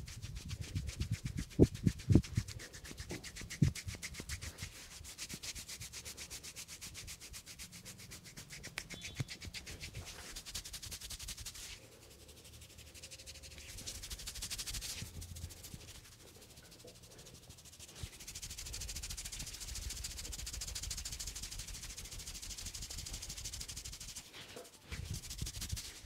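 Fingers rubbing briskly through short hair on a man's scalp during a head massage, a rapid, rhythmic scratchy rustle. A few dull thumps in the first few seconds.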